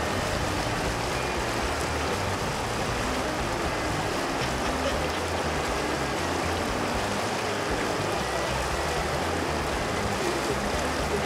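Steady rush of a fast river running over rocks and riffles, an even hiss that does not let up.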